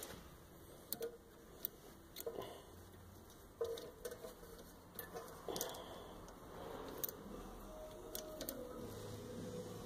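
Light metallic clicks and clinks, spaced about a second apart, from hands working the coiled spring and cable end of a car's parking brake cable against a rear brake caliper bracket.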